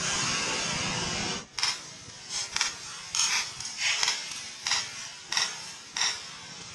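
A loud steady hiss cuts off suddenly about a second and a half in. It is followed by about ten short, sharp clacks at an irregular pace, ending about six seconds in.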